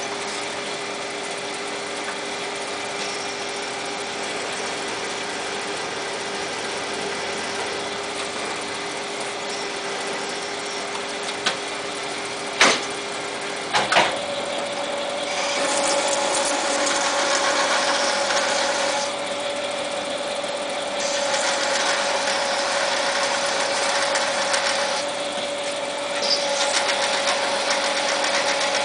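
Small Jet TL-25 turret lathe running with a steady machine hum. Around the middle come a few sharp clicks as the turret is indexed, and the running tone steps up in pitch. After that come three stretches of cutting noise, each lasting several seconds, as a turret tool is fed into the 12L14 steel coupling stock.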